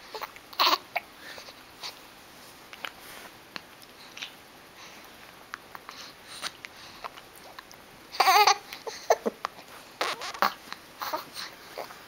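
A baby hiccuping: short, sudden hiccups at irregular intervals of a second or two, mixed with babbling vocal sounds. The loudest is a longer voiced sound about eight seconds in.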